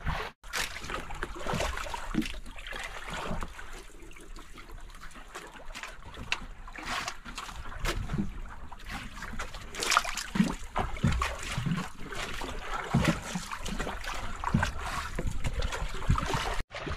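Sea water slapping and splashing irregularly against the hull and outriggers of a small wooden outrigger boat, with wind on the microphone.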